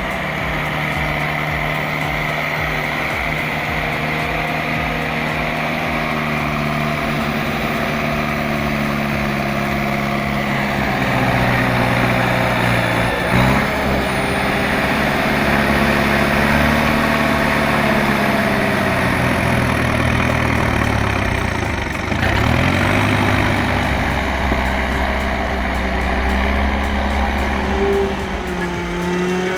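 Heavy vehicle engine running steadily, its pitch rising and falling as it revs up and down through the middle of the stretch, then settling back to a steady run.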